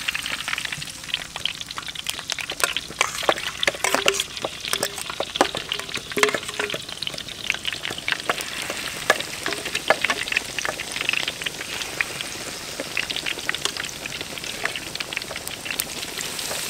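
Battered pork ribs deep-frying in hot oil in a large wok: a steady sizzle full of sharp crackles as the batter hits the oil.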